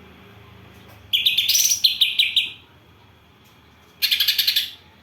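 A songbird singing two bursts of fast, high chirps. The first starts about a second in and lasts about a second and a half; the second, shorter, comes near the end.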